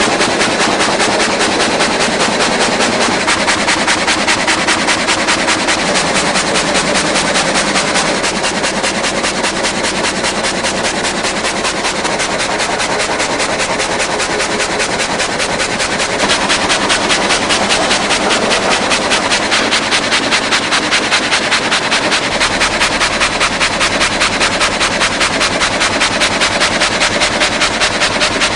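Multi-rip gang saw machine running with a rapid, even clatter, slightly louder about halfway through.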